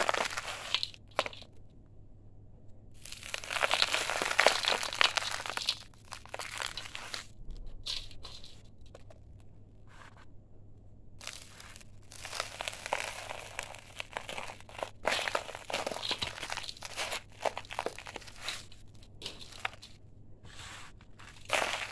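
Dry sand-cement chunks crushed and crumbled between the fingers over a paper card in a bowl of cement powder: crisp, crunchy crumbling in three bouts, with short pauses near 2 and 10 seconds in.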